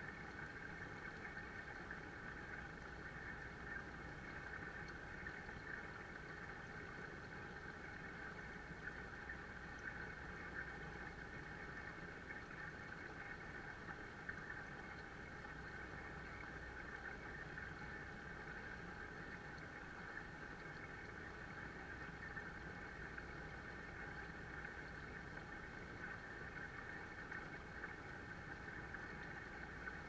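Waterfall pouring steadily into an indoor koi pond, a continuous splashing rush of falling water with no breaks.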